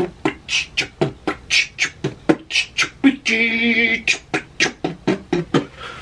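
A man vocally imitating retro workout-video music with beatbox-style mouth beats, about four a second. Near the middle the beats break off for one held, wavering sung note, then resume and stop just before the end.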